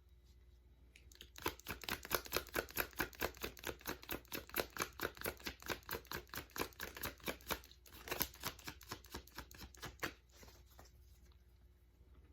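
A deck of tarot cards shuffled by hand: a quick run of soft card slaps, several a second, starting about a second and a half in and stopping around ten seconds in.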